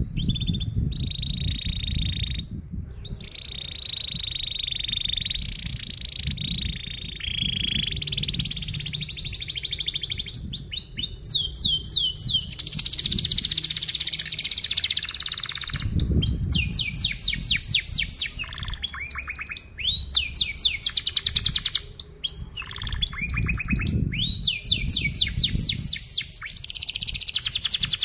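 Domestic canary singing a long song: tight trilled rolls held for several seconds at a time, then phrases of fast repeated rising chirps from about halfway through.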